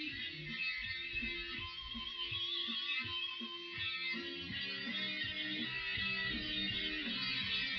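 Background music led by a plucked guitar, playing a repeating pattern of notes.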